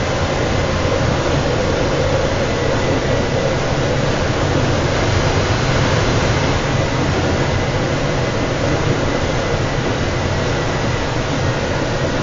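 Electric shuttle train running along snow-covered track: a steady low rumble and rushing noise from the moving train, with a faint steady high tone over it.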